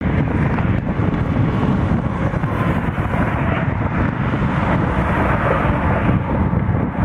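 A steady outdoor roar of wind buffeting the microphone, with a rumble underneath.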